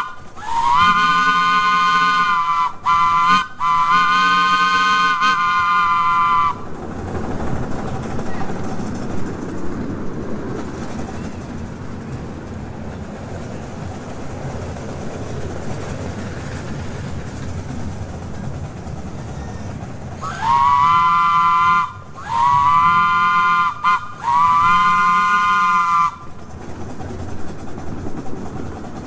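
Chime train whistle, a chord of several tones, blown in three blasts, the middle one short, then three more blasts about twenty seconds later; each blast slides up in pitch as it starts. Between the two groups the miniature train rumbles along its track.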